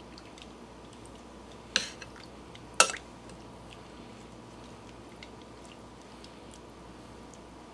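Metal tongs clicking twice, about a second apart, against a glass bowl, with faint wet squishing and dripping as sliced steak is turned and lifted out of its soy and Worcestershire marinade.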